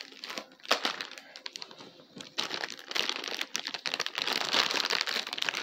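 Thin plastic bag of a Happy Meal toy crinkling and crackling as it is handled and worked open: scattered clicks at first, then dense steady crinkling from about two and a half seconds in.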